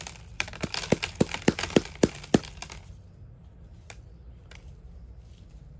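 A quick run of about eight hard plastic clicks and knocks over the first two and a half seconds, then two faint clicks. This is a black plastic cactus pot being handled and knocked to free the plant for unpotting.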